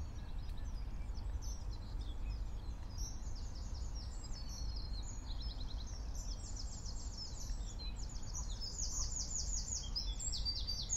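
Dawn chorus: several songbirds singing at once, with rapid repeated high notes and trills overlapping throughout, over a low steady rumble.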